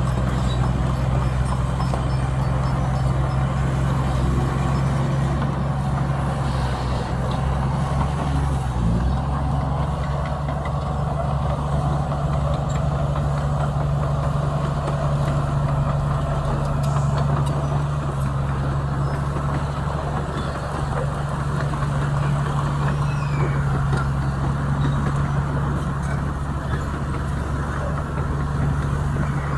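Heavy diesel engine of earthmoving machinery running steadily under load, a low drone that dips briefly in pitch about nine seconds in.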